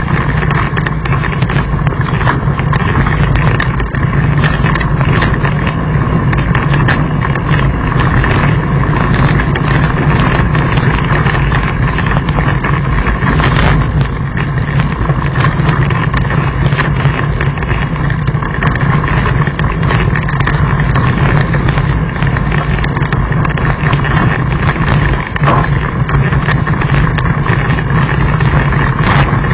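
Mountain bike rolling fast downhill over loose rocky gravel: a steady loud rumble and rattle of the tyres on stones and of the bike shaking, mixed with wind noise on the microphone.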